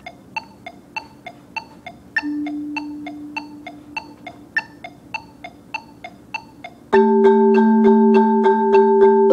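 Metronome clicking about three times a second, with a stronger click every eighth beat; one low note rings for a couple of seconds about two seconds in. About seven seconds in, a marimba comes in loud with a four-mallet rolled chord that holds steady under the clicks.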